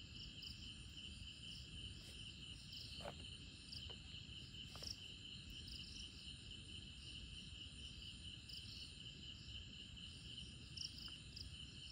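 Faint, steady chorus of night insects: a constant high trilling, with a couple of faint ticks partway through.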